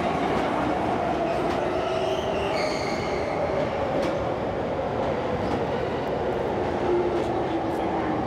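Electric commuter train pulling in along a station platform, its motor whine falling slowly in pitch as it brakes, over the steady noise of the cars rolling past. A brief higher squeal comes about two seconds in.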